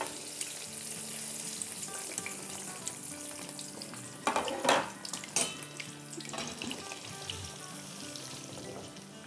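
Seasoned French fries dropped into hot oil in a deep pan, sizzling steadily as they deep-fry, the sizzle easing a little over time. A few short louder knocks come midway.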